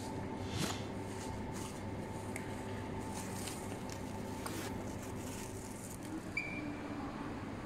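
Steady hum of an airport terminal hall, with a few faint clicks and a short high beep about six seconds in.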